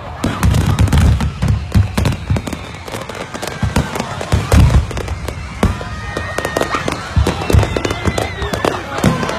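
Fireworks from a burning barge going off uncontrolled: a dense, irregular barrage of sharp bangs and crackles mixed with deep booms, with no pause.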